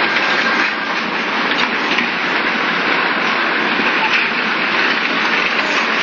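Tsunami floodwater surging, a steady loud rush of noise.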